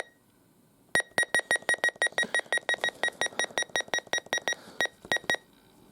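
A click, then a fast run of short, high electronic beeps, about five a second, from a weather alert radio's keypad as its button is pressed repeatedly to scroll through the alert-type menu.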